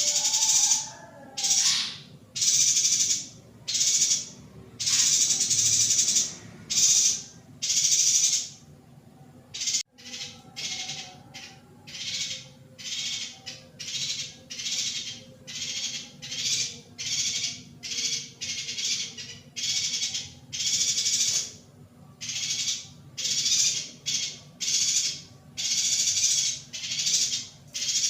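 Female yuhina calling over and over: short, harsh, hissing high-pitched calls about once a second, with a brief pause partway through.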